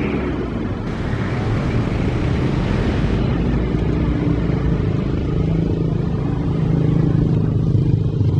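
Steady low engine rumble with a constant hum, growing a little stronger in the second half.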